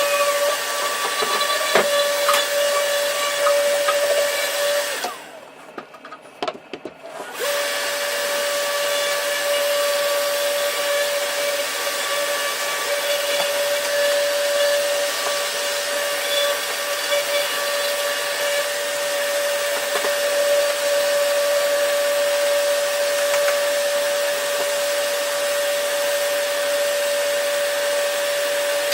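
A tool runs with a steady whine over a loud hiss, stops for about two seconds a few seconds in, with a few clicks, then starts again and runs steadily.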